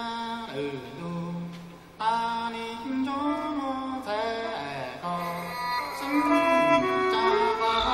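Hmong traditional music performed live: a single melody line sliding and wavering in pitch over a low held tone. It starts abruptly, breaks off briefly about two seconds in, then comes back louder.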